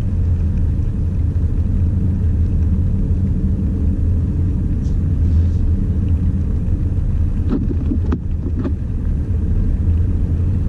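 Jeep Trailhawk SUV driving, a steady low rumble of engine and road noise, with a few short knocks about eight seconds in.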